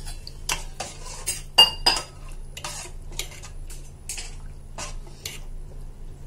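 Metal spoon stirring curry in a stainless-steel pot, clinking and scraping against the pot about two or three times a second. One louder ringing clink comes about a second and a half in.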